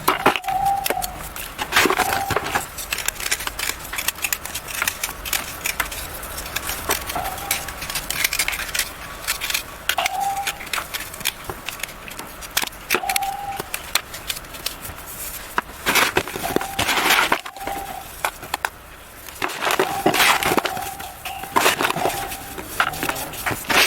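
Moulded yellow chalk blocks being crushed and crumbled, with dense, irregular crunching and crackling that comes in louder clusters. Short squeaky tones recur every few seconds among the crunches.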